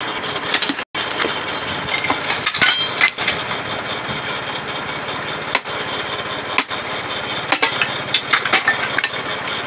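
Engine of a tractor-driven borewell pipe-lifting machine running steadily, with irregular sharp metallic knocks from the machine and pipe.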